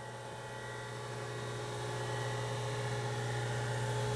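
Mitsui MSG-205MH surface grinder's spindle running, a steady hum with a few steady tones that grows slightly louder. The spindle is smooth and quiet.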